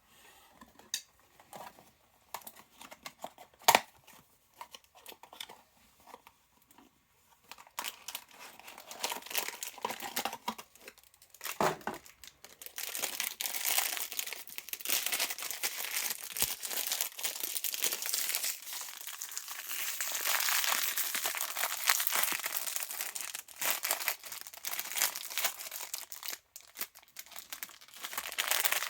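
Plastic blind-box packaging being handled, torn open and crinkled. It starts with scattered small clicks and one sharp tick, then turns into dense, continuous crinkling and tearing that gets louder partway through.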